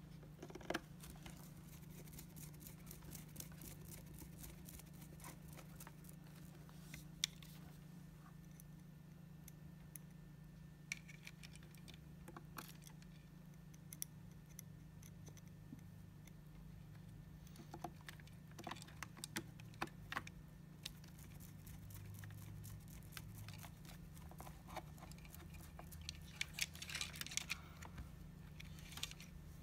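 Faint small clicks and rattles of a screwdriver driving screws into a hoverboard's shell and of wires and plastic parts being handled, with two busier bursts of clicking, over a steady low hum.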